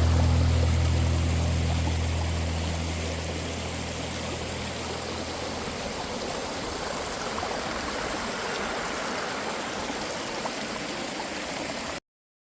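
Mountain-valley stream flowing, a steady even rush of water. Low background music fades out during the first few seconds, and the sound cuts off abruptly near the end.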